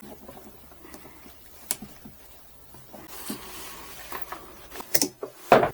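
Handling noise of a fuel line being worked by hand onto a tight fitting: soft scuffs and small clicks, with two sharper clicks near the end.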